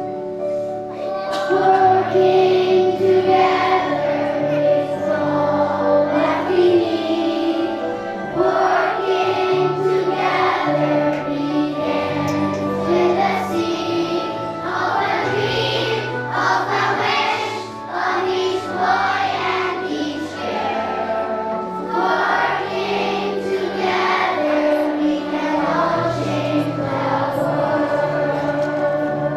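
Children's choir singing in unison over a musical accompaniment.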